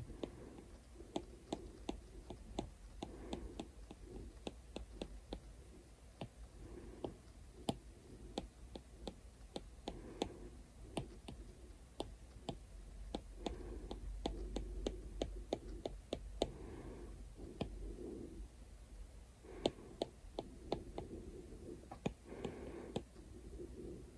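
Apple Pencil tip tapping on the iPad's glass screen: a long run of light, irregular clicks, at times several a second.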